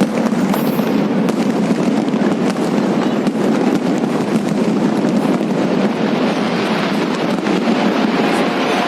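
Fireworks display going off: a dense, continuous crackle of many small rapid bursts over a steady rumbling haze.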